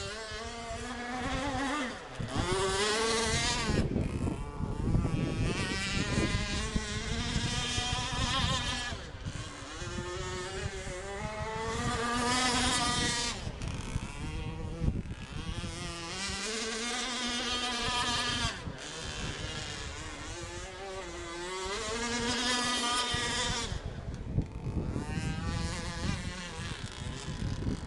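Radio-controlled catamaran race boat with an RCMK gas engine, a high buzzing whine that rises and falls in pitch again and again as the boat runs back and forth across the water.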